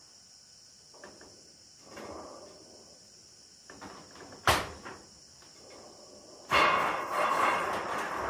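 A corrugated iron roofing sheet being handled on a roof. There is a sharp metallic clang just past halfway, then, near the end, a louder, longer scrape as the sheet slides over the corrugated roof.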